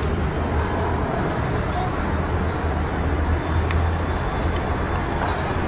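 Steady low rumble of outdoor urban background noise, with faint voices and a few light ticks.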